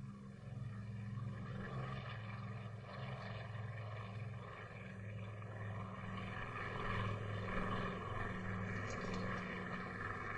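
Propeller airplane engines droning as the plane passes, growing louder to a peak about seven seconds in.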